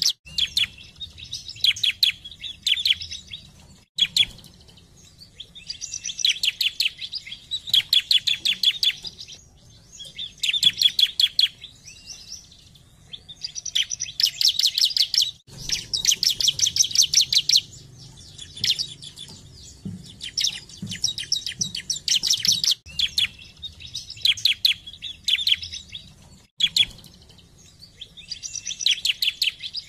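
Bar-winged prinia (ciblek) singing: phrase after phrase of fast, rapidly repeated high chirps, each phrase a second or two long with short pauses between. A few abrupt breaks cut through the song.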